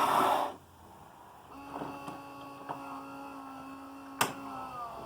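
Saeco Xelsis super-automatic espresso machine preparing its second shot: the bean grinder cuts off about half a second in, then a steady motor hum starts, with one sharp click about four seconds in and the hum dropping in pitch near the end.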